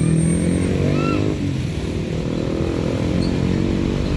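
Heavy truck's diesel engine running steadily, its low hum holding through the whole stretch. A brief high chirp comes about a second in.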